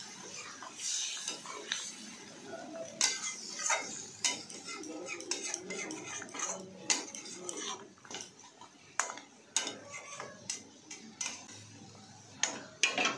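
A spatula stirring a thin yogurt curry of pointed gourds in a metal kadai, knocking and scraping against the pan in irregular clinks.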